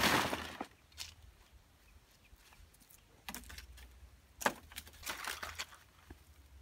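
A bundle of large fresh green leaves rustling as it is set down on dry ground, followed by scattered light footsteps and crackles, with a sharp click about four and a half seconds in.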